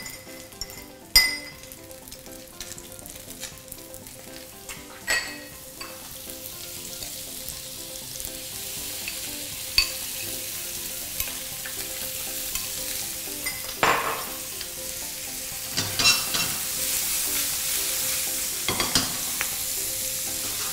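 A salmon fillet frying in a pan, with a sizzle that grows from about six seconds in as butter and then blanched vegetables go into the hot pan and is loudest near the end. Several sharp knocks and clinks of utensils against the pan and bowl.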